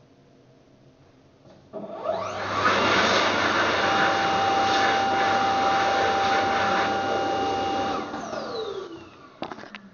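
Dyson Airblade jet hand dryer starting up with a rising whine and blowing at full power for about six seconds with a steady high whistle, then cutting off and spinning down with a falling whine. A few light clicks follow near the end.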